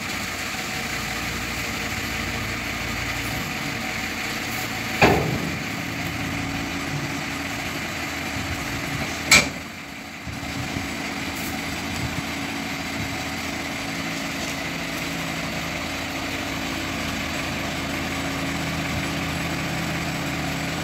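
Dump truck's diesel engine running as the raised tipper body lowers, with two loud bangs about five and nine seconds in as the body comes down. After that the engine settles to a steady idle.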